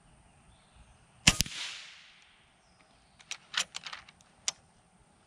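A single shot from an FX Impact .30 PCP air rifle, with the pellet's smack on a flat quarter-inch steel plate following a split second later and a brief fading tail after it. A few smaller sharp clicks come about two seconds later.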